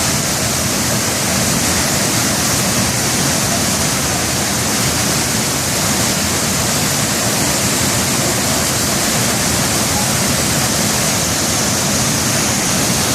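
Waterfall crashing: a loud, steady rush of falling water with no let-up.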